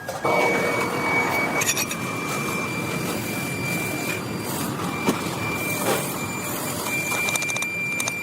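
Steady industrial machine noise with a thin, high, steady whine running through it that breaks off briefly twice.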